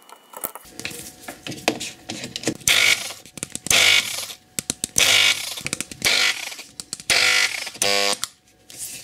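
Angle grinder with a burnt-out armature, switched on straight from the mains in several short bursts of noise, the last ending in a brief buzz. The armature has shorted turns and appears completely burnt out.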